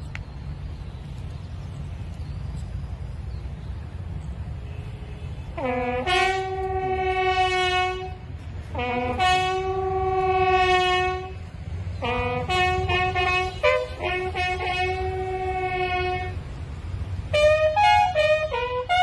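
A bugle sounding a ceremonial salute call: slow phrases of long held notes, each opening with a quick upward step, and quicker shorter notes near the end. It starts about six seconds in, after a low steady rumble.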